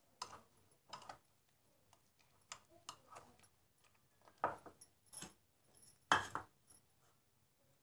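Metal spoon clinking and scraping against a glass bowl as shredded cabbage is stirred into a creamy dressing: a string of short, irregular clinks, the loudest about six seconds in.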